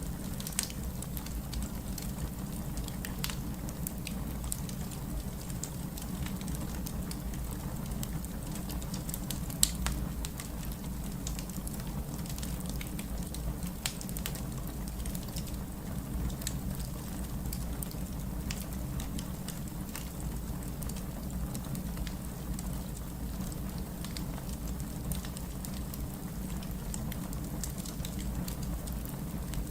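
Wood fire burning in a fireplace, crackling: scattered sharp pops and snaps over a steady low rumble, with one louder pop about ten seconds in.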